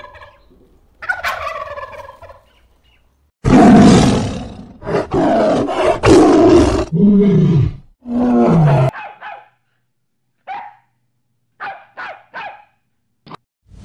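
A domestic turkey gobbles once, then a tiger gives several loud roars and growls, then a puppy gives a few short, high barks.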